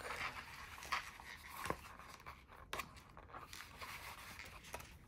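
Faint rustling and a few light taps and scrapes of a paper notebook insert and a folder being handled and slid together in a traveler's notebook cover.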